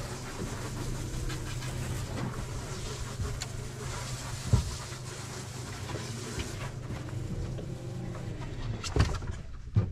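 Boat motor idling with a steady low hum under wind and water hiss. A few sharp thumps come through, one about halfway and two near the end.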